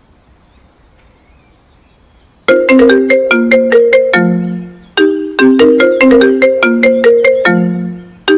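Mobile phone ringtone starting about two and a half seconds in: a loud, repeating marimba-like melody of short bright notes, the phrase playing about twice.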